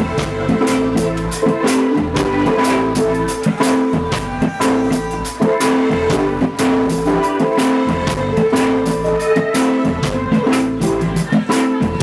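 Live band playing an instrumental passage: a drum kit keeps a steady beat of frequent strikes under electric guitar and held keyboard and bass notes.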